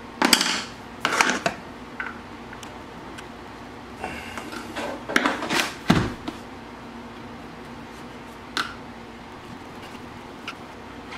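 Scattered clicks, knocks and rustles of an inline skate and its frame being handled and worked on with a hex key while the frame bolts are undone. A few louder knocks come about a second in, around five to six seconds in, and once more later.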